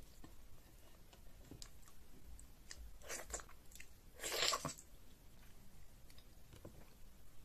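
Close-miked eating by hand: soft wet chewing and mouth clicks of someone eating egusi soup, with two louder wet mouth sounds about three and four seconds in as fingers carry food to the mouth, the second the loudest.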